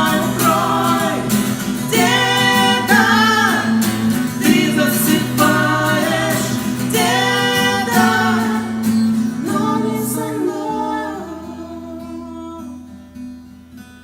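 A song sung to acoustic guitar accompaniment. The voice stops about ten seconds in and the guitar rings on, fading out.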